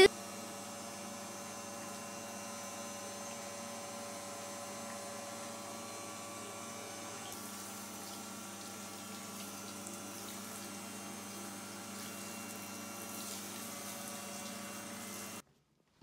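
Water from a handheld shower head spraying into a bathtub and over a wet dog, with a steady hum underneath. The hiss of the spray grows stronger about halfway through, and the sound cuts off abruptly near the end.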